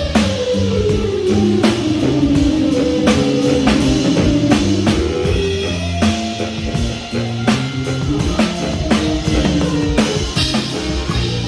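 Live band music with a drum kit, and a lead instrument soloing that slides slowly down in pitch over the first few seconds.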